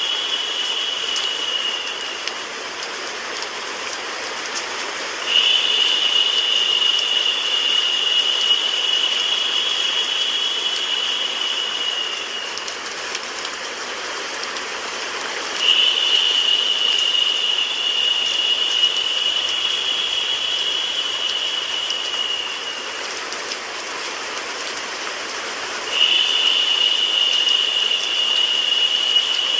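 White noise mixed with a rain sound effect: a steady, even hiss. A narrower, higher hiss joins it about five seconds in, again about sixteen seconds in, and again near the end, lasting about seven seconds each time.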